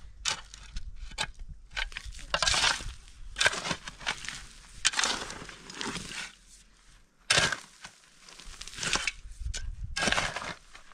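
A steel shovel digging and scraping into dry, stony soil: a series of gritty crunches roughly a second apart, with a sharp knock about seven seconds in.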